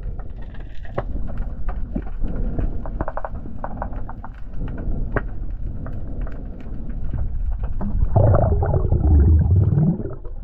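Muffled underwater sound on a diving camera: low water noise with many scattered clicks and crackles, and a louder low rumble from about eight seconds in that dies away near the end.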